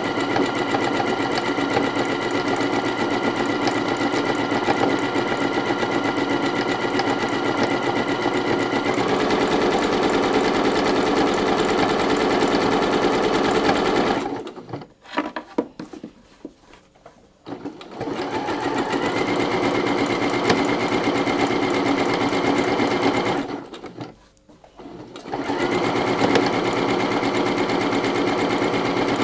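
Domestic sewing machine running fast for free-motion embroidery, its needle stitching densely back and forth through hooped fabric under a darning foot to fill in a petal. Its pitch drops slightly about a third of the way in. It stops twice, for about four seconds around the middle and for about two seconds later, then starts again each time.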